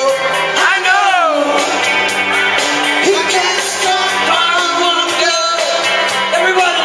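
Live band music: a man singing into a microphone over acoustic and electric guitar accompaniment, his voice sliding between notes.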